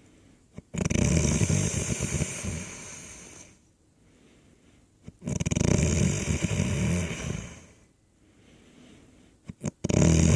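Loud snoring: three long, rattling snores about four and a half seconds apart, each opening with a short click, the last one running on past the end.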